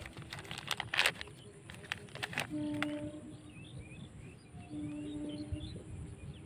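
Plastic packet crackling and rustling as it is handled and opened to take out a new metal bush, for the first two and a half seconds. After that, birds chirp faintly in the background.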